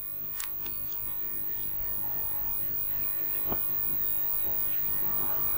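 Steady low electrical hum with faint background hiss, growing slightly louder, with two faint clicks.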